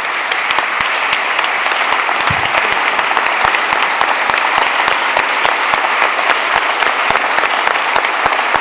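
A large crowd applauding steadily, with many overlapping hand claps.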